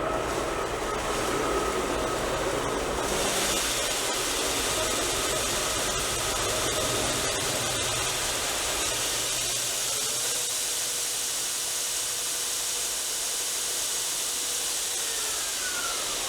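TW90 belt grinder running with a steady, even hiss that grows brighter about three seconds in.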